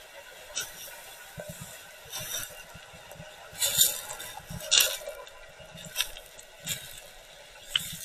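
Water sounds picked up by an action camera in its waterproof housing underwater: irregular bursts of splashing and bubbling, roughly once a second, over a faint low rumble.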